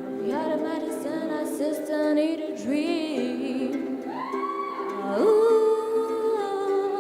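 A girl singing over a strummed ukulele, ending on a long held note.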